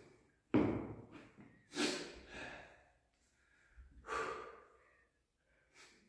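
A lifter's heavy, forceful breathing as he braces under a barbell loaded to 732.5 kg: three hard breaths about a second or two apart, each trailing off, and a smaller one near the end.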